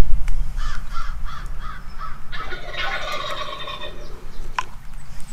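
Wild turkey gobbler gobbling: a rapid, rattling gobble lasting about two seconds, starting a little over two seconds in, after a quick series of short calls in the first second or so.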